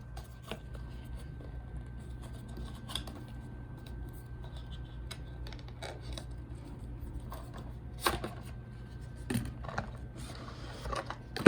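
A small cardboard cube box being handled and opened: scattered clicks, rubs and scrapes, with a louder knock about eight seconds in.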